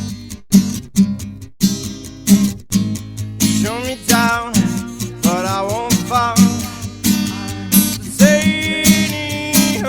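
Acoustic guitar played live, a melody with sliding notes over strummed chords and sharp percussive hits at a steady beat, about two a second.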